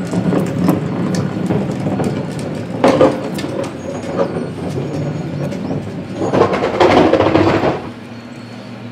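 Toy front-loader garbage truck being handled and moved on a hard floor: rattling and small clicks over a steady low hum. Louder scraping and rustling comes about three seconds in and again from about six to nearly eight seconds, then it settles to the lower hum.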